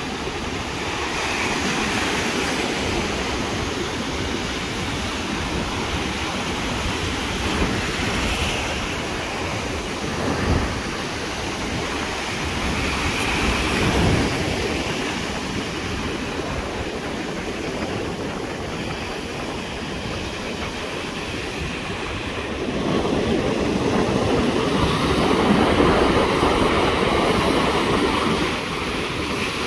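Ocean surf breaking and washing over a concrete breakwater, a steady rush that swells with each wave and is loudest near the end.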